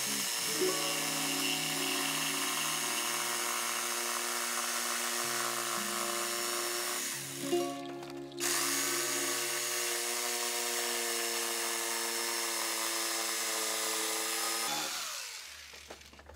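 Corded jigsaw cutting through a solid wood board: a steady motor whine with the blade's rasp. It stops for under a second about halfway, starts again sharply, and winds down near the end.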